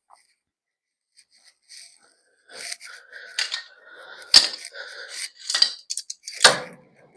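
Steel air-ride bag plate being set into place on a truck's front cross member: metal scraping and clanking, starting about two and a half seconds in, with two sharper knocks.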